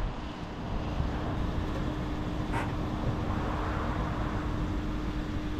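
Toyota Corolla Axio hybrid car moving slowly with a low rumble and a steady hum, and a single click about two and a half seconds in.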